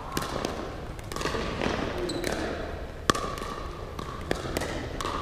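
Pickleball paddles striking the hard plastic ball during a rally: a string of sharp, irregular pops, the sharpest about three seconds in.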